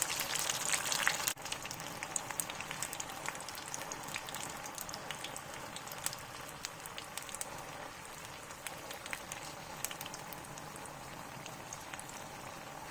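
Popiah spring rolls deep-frying in hot peanut oil, a steady bubbling sizzle with many small crackles, about three minutes into frying. It is louder for the first second or so, then settles to a quieter, even crackle.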